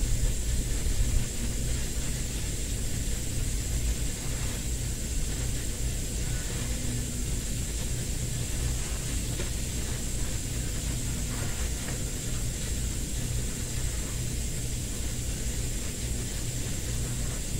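Steady low mechanical hum with a constant faint high whine, unchanging throughout, with a few soft rustles of foam-backed headliner fabric being laid and smoothed onto the board.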